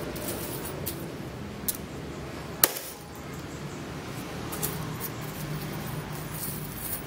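Steel chainmail rings clinking lightly as the mail patch is handled against a tree trunk, with one sharp metallic click about two and a half seconds in.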